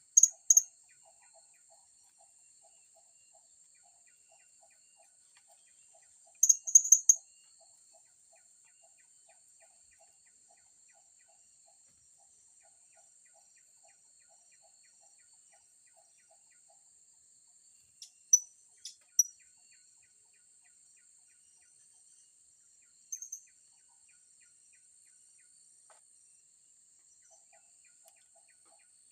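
Short clusters of thin, very high chirps from serindit (blue-crowned hanging parrots): once near the start, about a quarter of the way in, a few around two-thirds in, and once more later. Under them runs a steady high insect drone with faint regular ticking.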